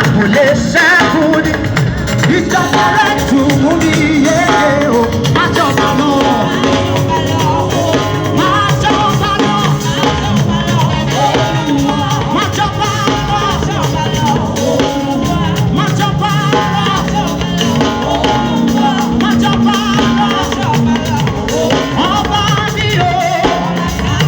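Upbeat live band music with a steady dance beat and a melody line over it.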